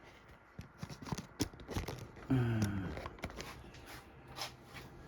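Light clicks, taps and scrapes of small parts being handled, with a brief low voiced hum or grunt from a man about two seconds in.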